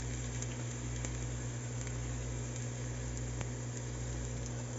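Hot vegetable oil sizzling steadily in a pot as wontons deep-fry, with faint scattered crackles. A steady low hum runs underneath.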